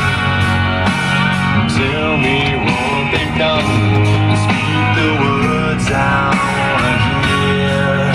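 Rock song with guitar and a singing voice playing on a pickup truck's radio.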